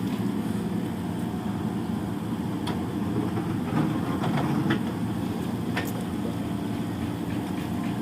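Excavator's diesel engine running steadily, with a few short sharp clicks or clanks over it.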